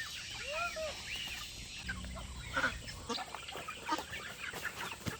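A flock of poultry calling, many short arched calls overlapping one another.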